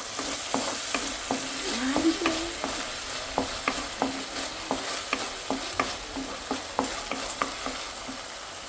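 A spatula stirring and knocking against a pan of sizzling, sauce-coated vegetables, with sharp knocks about two to three times a second over a steady fry.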